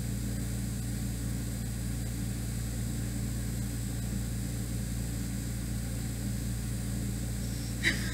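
Window air conditioner running: a steady low hum with hiss. Near the end there is one short, sharp click.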